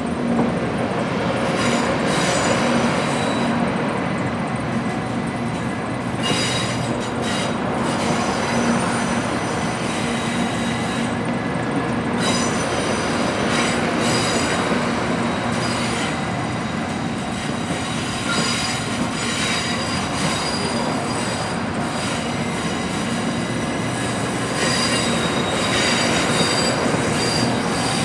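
Class 923 Doctor Yellow shinkansen inspection train passing over a level crossing, its wheels squealing with high steady tones that come and go over the rolling rail noise.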